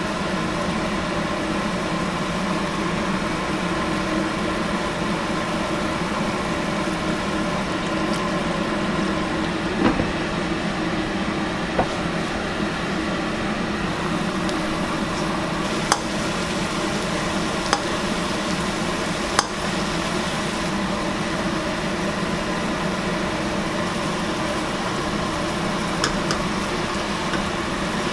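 Braised eel pieces simmering and bubbling in sauce in a wok, under a steady motor-like hum, with a few short knocks from a spatula stirring against the wok.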